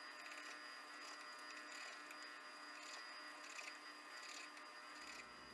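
Faint steady electrical buzz over near-silent room tone.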